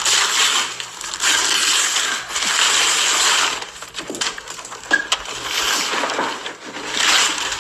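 Wrapping paper ripping and crumpling as a present is torn open: long bursts of tearing with sharp crackles between them.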